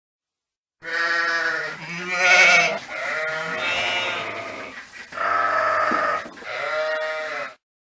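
Sheep bleating: about five wavering bleats in a row with short gaps between them, starting about a second in. The loudest is about two and a half seconds in.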